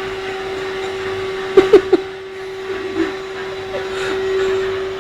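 Prototype cordless vacuum cleaner's motor running with a steady whine. About one and a half seconds in, three sharp clicks come close together, the loudest sounds here.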